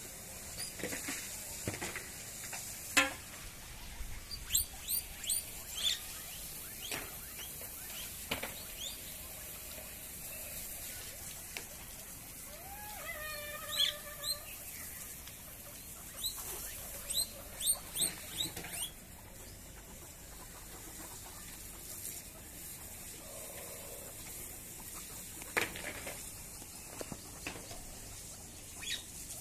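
Guinea pig squeaking: short, high squeaks and chirps in scattered clusters a few seconds apart, some gliding quickly in pitch, with a few soft knocks between.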